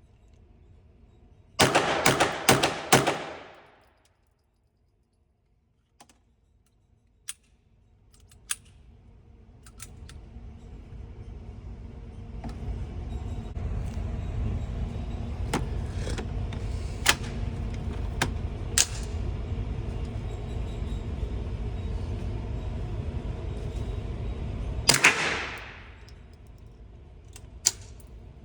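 Suppressed pistol shots: a quick string of about five reports about two seconds in, then scattered single sharp cracks. A steady low rumble builds through the middle and stops when another loud report rings out near the end.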